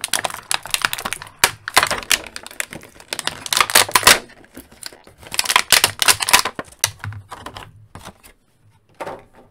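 Thin clear plastic packaging tray crackling and crinkling in the hands as an action figure is pulled out of it: quick runs of sharp crackling clicks. They are busiest over the first four seconds, come again around five to six seconds in, and thin out after about seven seconds.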